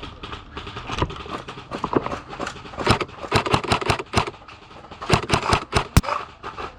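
ICS CXP MARS Komodo airsoft electric gun firing fast single semi-automatic shots, a string of sharp snapping clicks. They are sparse at first, then come in two quick runs, about three seconds in and again about five seconds in.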